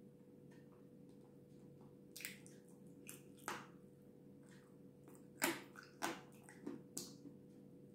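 Close-up mouth sounds of eating soft cream-covered cake: a handful of short, wet squishy smacks and chewing sounds, the loudest about five and a half seconds in. A faint steady hum lies underneath.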